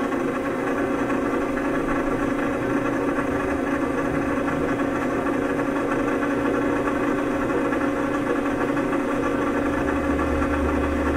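Electric vibration-therapy apparatus running under a sheet, shaking the patient's hands resting on it. It makes a steady mechanical hum with a deeper rumble coming in near the end.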